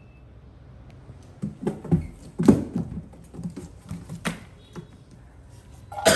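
Irregular light taps and thumps of a baby monkey's hands and feet and a person's hand on a white box, with a louder burst right at the end.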